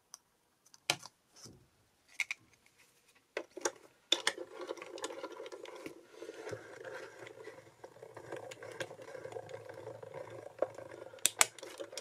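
A few sharp clicks and taps of plastic cutting plates being handled. From about four seconds in, a hand-cranked mini die-cutting machine runs steadily as its rollers draw the plate-and-die sandwich through to cut the card.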